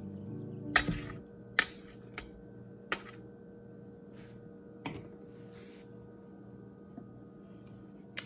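A metal spoon and knife clinking and scraping against a stainless steel mixing bowl while stirring dry flour and baking powder. There are several sharp clicks a second or two apart, a few with a brief scratchy rustle after them.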